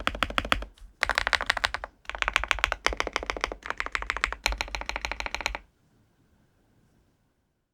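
Fast typing on a KiiBOOM Phantom81 Lite mechanical keyboard: its light, smooth Mochi switches clack in quick runs, with short breaks between runs. The typing stops a little over two-thirds of the way through.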